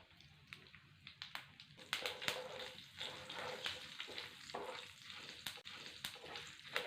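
Mustard seeds, cumin and curry leaves sizzling in hot oil in a frying pan, with turmeric just stirred in. A spoon clicks and scrapes against the pan as it is stirred, and the sizzle grows louder about two seconds in.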